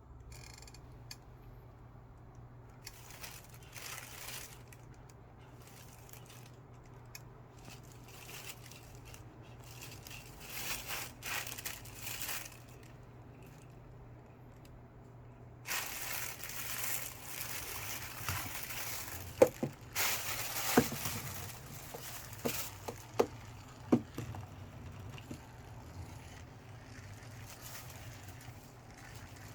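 A plastic bag crinkling and rustling in irregular bursts as a kitten plays with it, busiest in the second half. It comes with a few sharp taps or knocks and a steady low hum underneath.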